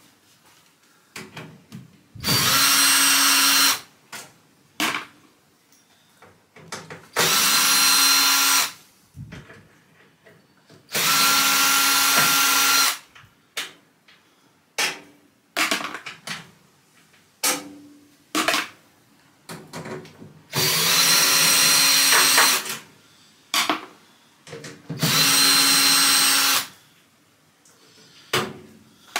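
Cordless drill-driver running in short bursts, five runs of about one and a half to two seconds each with a steady motor whine, as it backs the screws out of a microwave's sheet-metal outer cover. Small clicks and knocks come between the runs.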